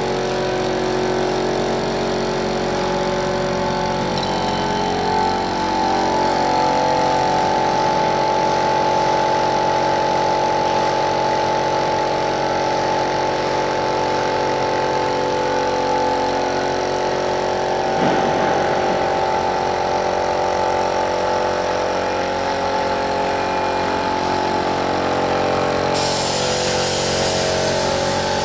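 Air compressor running steadily. Near the end, the hiss of a gravity-feed spray gun starts as paint is sprayed.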